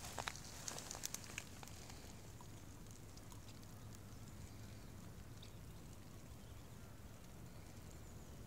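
A handful of light, sharp clicks in the first second and a half as a small glass jar is handled and turned in the fingers, then only a faint steady background hiss.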